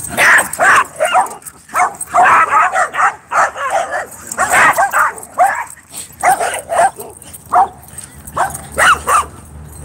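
Dog barking repeatedly: a fast, irregular run of loud barks with short pauses between the runs.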